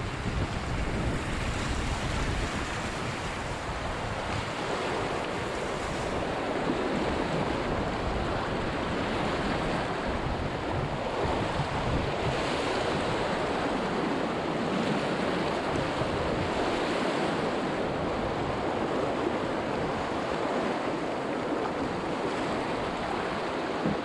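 Whitewater of a river rapid rushing steadily around an open canoe as it runs down, with some wind rumble on the microphone in the first few seconds.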